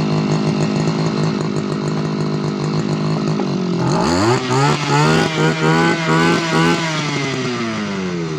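Tanika 328 Turbo two-stroke brush cutter engine idling steadily. About four seconds in it is revved in about five quick throttle bursts, then it drops back to idle.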